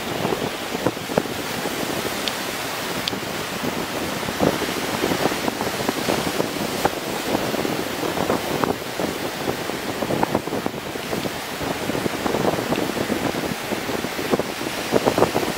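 Wind buffeting the microphone in irregular gusts over the steady wash of surf breaking on the beach.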